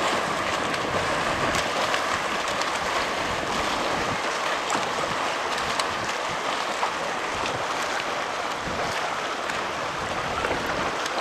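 Steady rushing noise of choppy open water and wind, with small scattered splashes.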